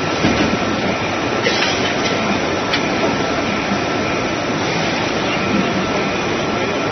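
Steady machine noise from injection moulding machines running in a busy trade-show hall, with a thin steady whine through it and a couple of brief clicks.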